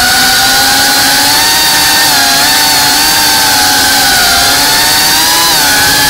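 CineLog35 ducted FPV cinewhoop drone in flight: its brushless motors and propellers give a continuous whine over a rush of air, and the pitch wavers up and down as the throttle changes.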